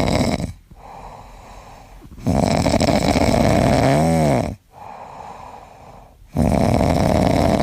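A pet snoring loudly: three long rasping snores about four seconds apart with quieter breaths between, the middle one ending in a whistle that rises and falls.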